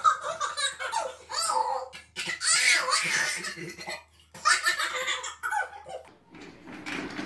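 Two babies laughing hard at each other in repeated bursts of belly laughs and giggles, breaking off near the end.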